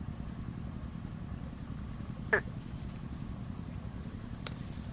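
One short, sharp animal squeak a little over two seconds in, over a steady low rumble.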